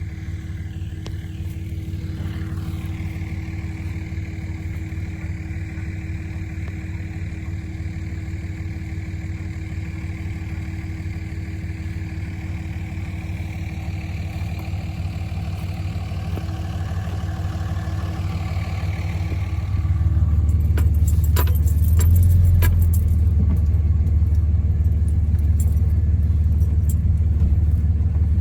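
A vehicle running steadily with a low hum. About twenty seconds in it gets louder, and clicks and rattles come in.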